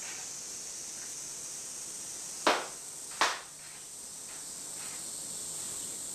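Two sharp hand claps about three-quarters of a second apart, the ritual clapping of worshippers before a Shinto shrine altar, over a steady tape hiss.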